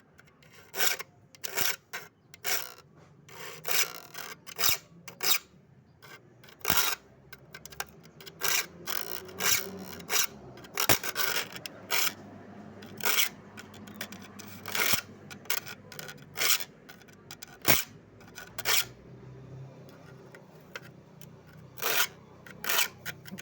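Metal file rasping across a saw's teeth in short, repeated strokes, roughly one a second with brief pauses, as the saw is sharpened by hand.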